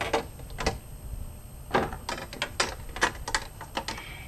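Irregular hard plastic clicks and knocks, about a dozen, as a chrome trim strip is handled and set against a black plastic car grille.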